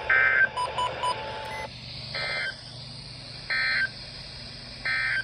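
EAS/SAME end-of-message data bursts from a NOAA Weather Radio broadcast, marking the end of the alert message: short, harsh warbling bursts of digital tone. One comes at the start and three follow, evenly spaced about a second and a half apart. About a second in come three quick short beeps.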